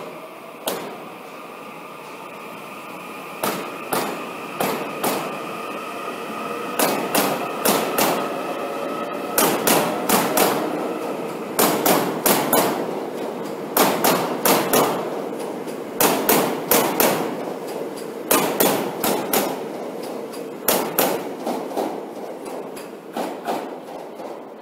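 Train wheels clacking over rail joints, in quick clusters of three or four strikes about every two seconds as each car's bogies pass, over steady rumbling. A steady electric motor whine in the first several seconds fades out.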